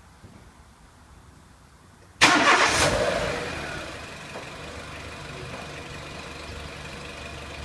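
A Renault Clio 1.6 petrol four-cylinder engine starting: it cranks and catches about two seconds in, flares up briefly, then settles to a steady idle with a faint steady high whine.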